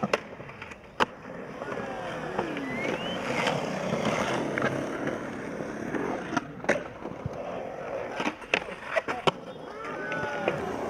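Skateboard wheels rolling on concrete, with several sharp clacks of the board hitting the concrete.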